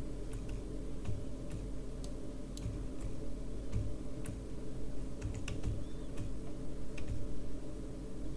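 Irregular light clicks from a computer keyboard and mouse over a steady low hum.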